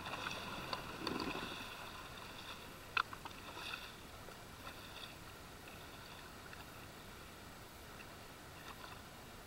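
Sea-Doo personal watercraft idling faintly, a steady hum, with one sharp click about three seconds in.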